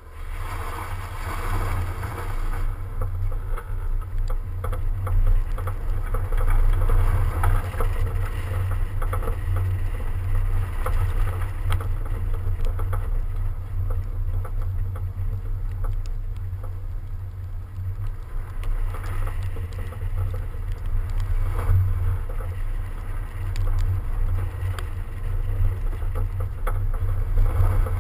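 A BMW 335d driving on packed snow, heard from a camera mounted on its flank. Wind buffets the microphone as a heavy, steady low rumble over the car's tyre and road noise.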